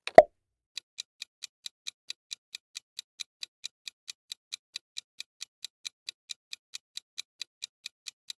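Countdown-timer clock-ticking sound effect: sharp, evenly spaced ticks, about four to five a second, starting about a second in. Just before the ticking starts comes a single short, loud pop.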